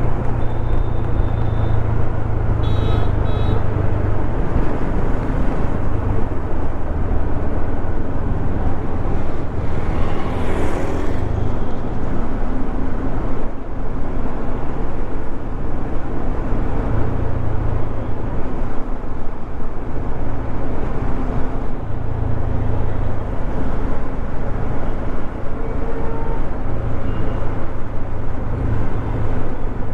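Bajaj Dominar 400's single-cylinder engine running at road speed, under steady wind and road noise with traffic around it. The engine hum swells and eases as the throttle changes, and a brief high tone sounds about three seconds in.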